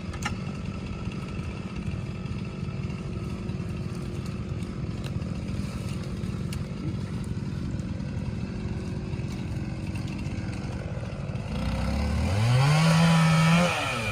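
Chainsaw engine idling steadily, then revved up to full throttle about twelve seconds in, held high, and cut off suddenly.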